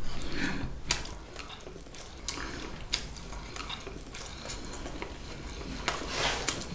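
Spoons and chopsticks clinking and scraping against dishes during a meal, with several sharp clicks spread through.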